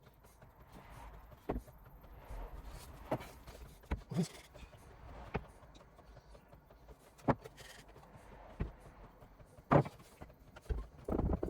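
Irregular wooden knocks and taps as glued chair parts are fitted and pushed together, about a dozen, with the loudest knock near the end followed by a quick cluster.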